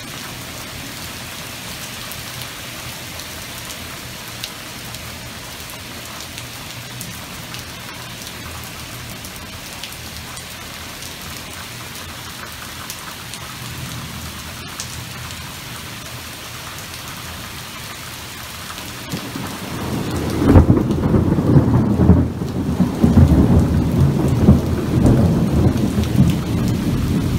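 Heavy rain falling steadily on pavement. About two-thirds of the way through, a long, loud rumble of thunder rolls in and carries on for several seconds over the rain.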